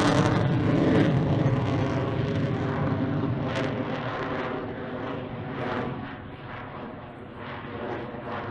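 Jet noise from a MiG-29 Fulcrum's twin turbofan engines as the fighter climbs away overhead. It is a loud rushing drone that fades steadily and loses its hiss over the few seconds.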